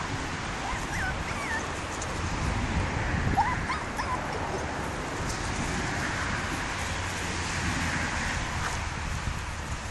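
Seven-week-old puppies whimpering and yipping: a few short, high, wavering squeaks in the first four seconds, over a steady low background rumble.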